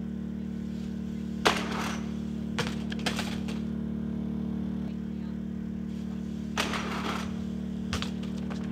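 A BMX bike hitting concrete hard about a second and a half in, followed by several more metallic knocks and rattles of the bike on the ground. Under it a steady low machine hum.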